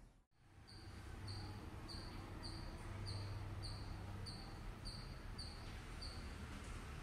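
A small animal chirping outdoors: short high chirps repeated about twice a second, stopping about six seconds in, over a low steady hum. The sound drops out briefly at the very start.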